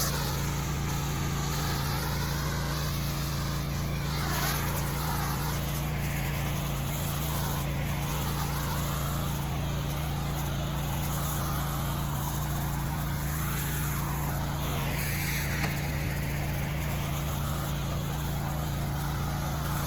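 Pressure washer running steadily, its engine giving a constant low hum, under the hiss of the water jet on concrete, which sways up and down.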